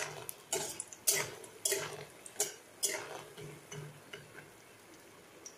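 Metal spatula scraping and clinking against a kadai, about twice a second, as moong dal bori are stirred in hot oil. The strokes stop about four and a half seconds in.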